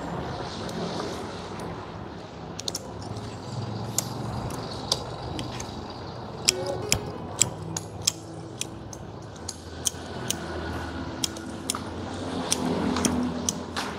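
Pruning shears snipping through a tree's roots: sharp clicks, a few scattered at first, then one about every half second from about six seconds in.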